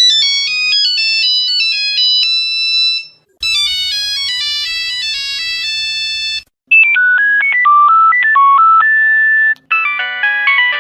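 Phone ringtones played one after another: four short electronic melodies of about three seconds each, separated by brief gaps, the last one lower in pitch and still playing at the end.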